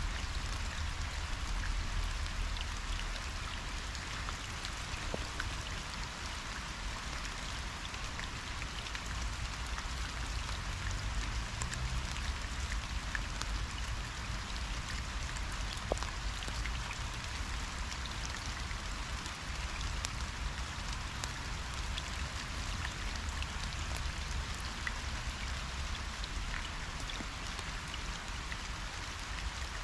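Steady hiss of falling water, with scattered small ticks and a low rumble underneath.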